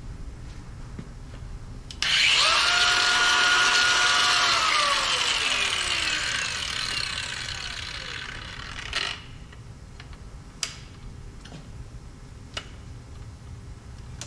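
Ridgid angle grinder with a cutting disc cutting through hydraulic hose held in a vise. It starts suddenly about two seconds in with a high whine held steady for a couple of seconds, then the whine falls as the motor spins down over several seconds. Two sharp clicks come near the end.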